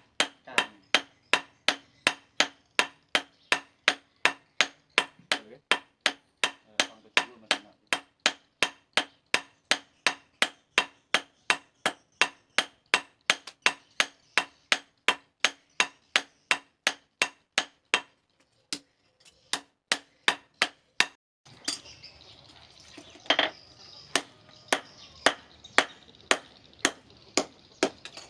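Hammer blows on steel on an anvil while forging a knife blade, evenly paced at about two a second with a faint steady hum underneath. About eighteen seconds in the hammering pauses. It resumes as fewer, irregular strikes over a louder background hiss.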